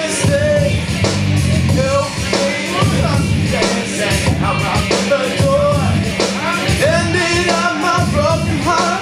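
Music: a man singing live into a handheld microphone over a backing accompaniment, the vocal line sliding and breaking between notes.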